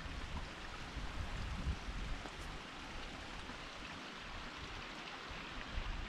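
Cascading mountain creek rushing over rocks: a steady, even hiss of water. A low rumble in the first couple of seconds fades away.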